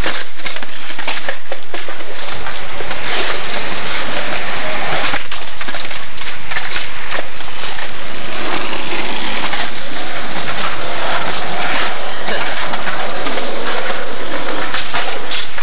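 Skateboard wheels rolling on concrete and boards knocking on stone ledges, heard as a loud, rough hiss with scattered knocks.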